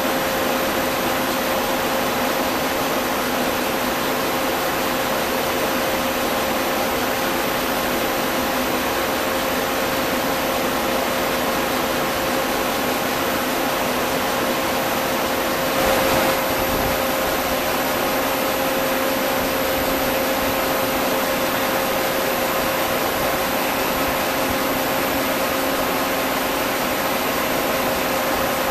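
Model RM-1 friction stir welding machine running through a steel butt weld: a steady mechanical noise with a constant hum, and a brief louder surge about sixteen seconds in.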